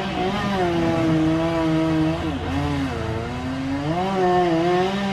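Chainsaw engine running under load, its pitch repeatedly falling and rising, with a sharp dip about two and a half seconds in.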